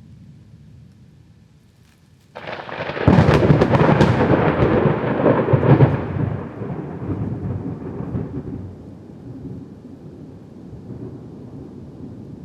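Close thunderclap: a faint low rumble breaks suddenly about two seconds in into a loud crackling crack, then rolls on as rumbling thunder that fades over several seconds to a low steady rumble.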